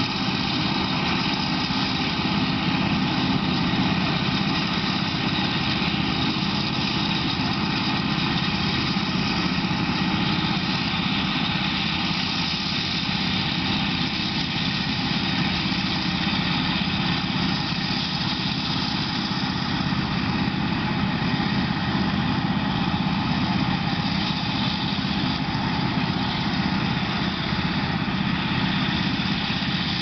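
Steady drone of farm machinery at work: a Claas Jaguar 890 forage harvester chopping maize into a trailer, with tractor engines running alongside.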